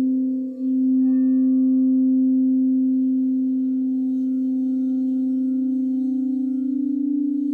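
Singing bowl ringing a steady low hum with fainter overtones above it, dipping briefly about half a second in. Near the end a second, slightly higher tone swells in, and the two beat against each other in a wavering pulse.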